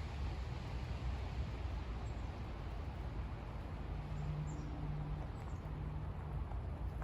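Steady outdoor ambience with a low rumble, a faint low hum for a couple of seconds near the middle, and a few faint, short, high chirps like small birds calling.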